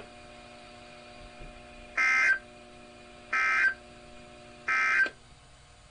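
Three short identical bursts of SAME digital data tones on a NOAA Weather Radio broadcast, about 1.3 seconds apart. These are the end-of-message code closing a severe thunderstorm warning. A low steady hum runs under the bursts and stops just after the third one.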